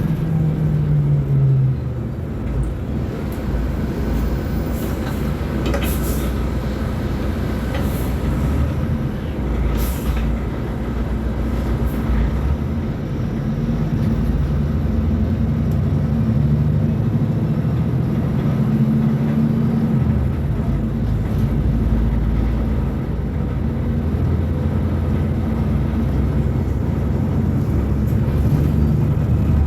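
Mercedes-Benz O500U Bluetec 5 city bus diesel engine running as the bus drives. Its pitch falls in the first couple of seconds and rises and falls again later, with a few sharp clicks in the first half.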